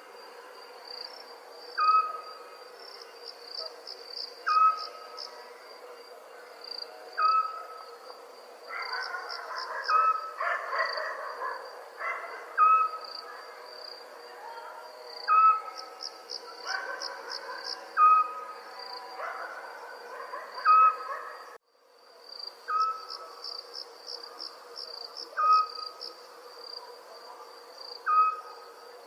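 Night ambience: crickets trilling steadily, with an owl's single short hoot repeating about every two and a half seconds. The calls get busier in the middle, and the sound drops out for a moment about 22 seconds in.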